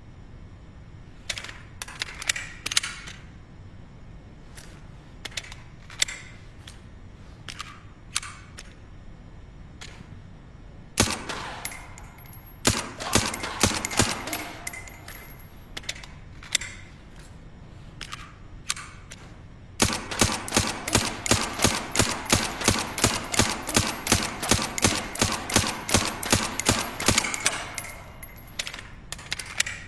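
Suppressed gunshots from a SilencerCo Maxim 9 integrally suppressed 9 mm pistol. Single shots and short strings come first, then a long rapid string of about four shots a second, starting about two-thirds of the way in.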